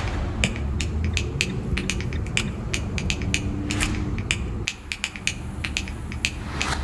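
A car rolling in slowly, its low engine and tyre rumble dropping away about two thirds of the way through as it comes to a stop, under a run of sharp clicks about three a second.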